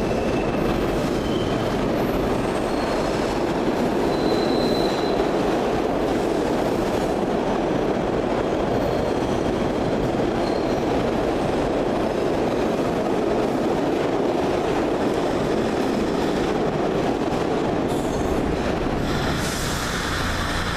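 SEPTA Broad Street Line subway train running through the underground station: a steady rumble of wheels on rails, with a few brief, faint high-pitched wheel squeals.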